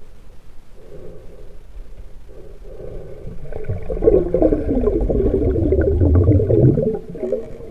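Muffled underwater water noise picked up by a camera held below the surface of a river: a low rushing and bubbling that swells louder a little before halfway through, crackles for a few seconds, then drops back.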